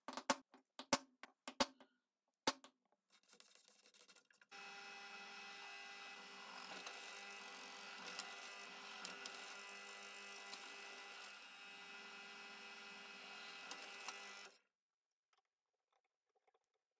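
A quick run of hammer blows in the first couple of seconds. Then a drill press runs steadily for about ten seconds, drilling through a steel pipe, and stops suddenly.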